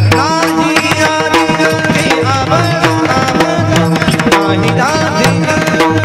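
Devotional kirtan music: small brass hand cymbals (taal) struck in a quick, steady rhythm over a drum, with pitched melodic lines on top.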